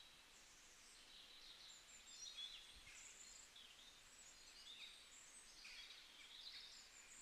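Faint birds chirping in the background: many short, high chirps scattered over near silence.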